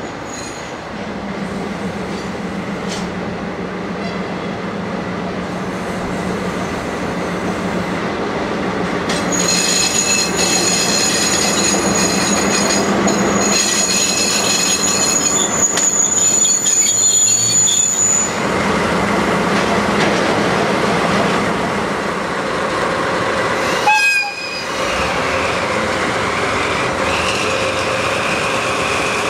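A pair of DD51 diesel-hydraulic locomotives hauling a train of tank wagons run past at low speed, with a steady diesel engine drone. A high metallic wheel-and-brake squeal sets in about a third of the way through and lasts some ten seconds, and a brief sharp sound stands out near the end.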